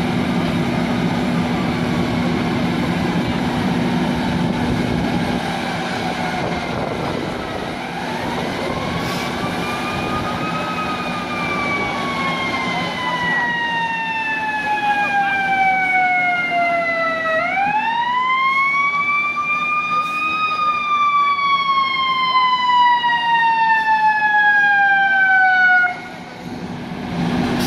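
Fire engine siren wailing: a slow rise and a long slide down in pitch, then a second, louder rise and slide that cuts off suddenly near the end. A steady low engine drone runs underneath through most of it.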